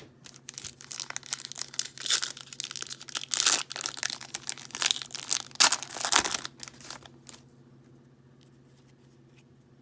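A foil Yu-Gi-Oh booster pack being torn open and crinkled, a dense run of crackling and tearing for about seven seconds that stops suddenly.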